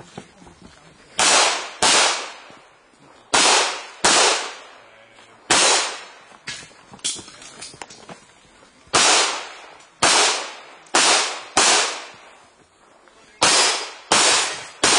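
Handgun fired in rapid pairs during an IPSC practical-shooting stage: about eleven sharp shots, each with a short echoing tail, grouped in twos with gaps of one to three seconds. Fainter cracks come in the middle.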